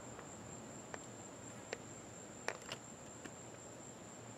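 Faint outdoor ambience: insects making a steady, thin, high-pitched drone, with a few soft clicks scattered through it.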